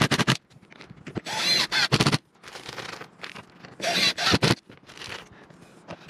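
Cordless impact driver driving screws through a roof vent flange, in several short runs of about a second each with pauses between them.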